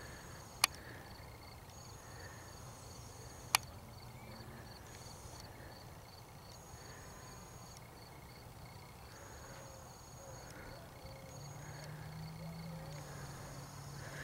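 Crickets chirping, a steady high pulsing trill with other insects trilling on and off above it. Two sharp clicks stand out, one under a second in and one about three and a half seconds in.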